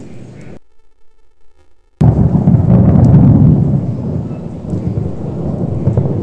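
Thunder: after a short, nearly silent gap, a loud low rumble starts suddenly about two seconds in, is strongest a second later, then rolls on and slowly fades.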